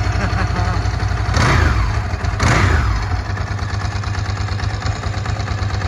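A 1992 Ducati 888 Strada's 888 cc Desmoquattro L-twin idling, blipped twice by the throttle about a second and a half and two and a half seconds in, each rev rising and falling back quickly before it settles to a steady idle.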